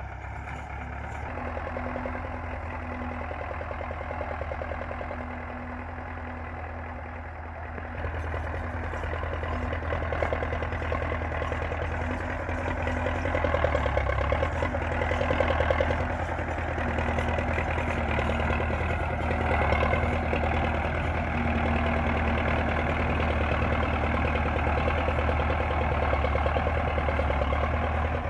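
Belarus MTZ-50 tractor's four-cylinder diesel engine running steadily under load while pulling a cultivator through dry soil. It grows louder about eight seconds in and is loudest near the middle.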